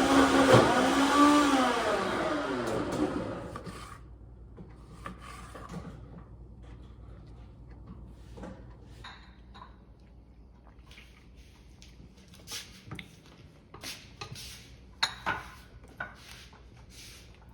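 A motor whirring with shifting pitch, which winds down and stops a few seconds in. Scattered light clicks and clatter follow.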